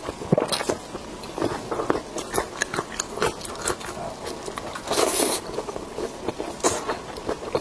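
Close-miked biting and chewing of pork intestine bundles: irregular wet clicks and crackles, with a longer, louder hissing burst about five seconds in.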